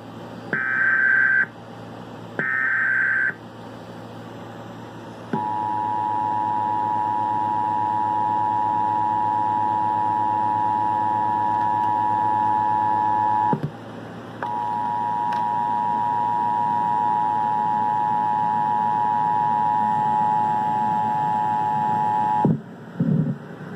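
Emergency Alert System tones from a mock EAS test. Two short high-pitched data bursts of the SAME header come first, then the EAS attention signal, two steady tones sounding together. The attention signal holds for about eight seconds, breaks off briefly, then holds about eight seconds more before cutting off.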